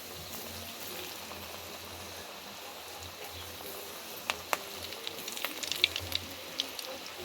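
Hot oil sizzling steadily as battered potato slices fry, with a run of sharp pops and crackles from about four seconds in.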